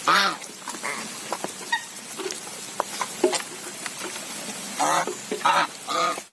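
A flock of white Chinese geese feeding from a bowl of wet mash: bills clicking and slurping in the feed, with short honking calls at the start and three more near the end.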